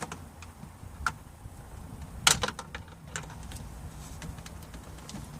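Scattered plastic clicks and taps of a plastic trim removal tool prying at an interior trim panel's retaining tab, with one sharper click a little past two seconds in.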